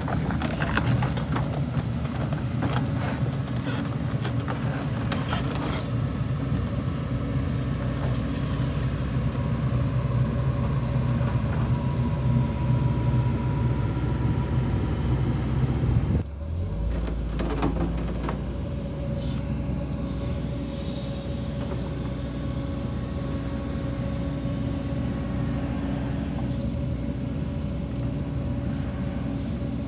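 New Holland E135BSR-2 excavator's diesel engine running steadily, with a few short knocks in the first few seconds. About sixteen seconds in, the sound drops abruptly and a deep low hum lasts a couple of seconds before the steady engine sound carries on.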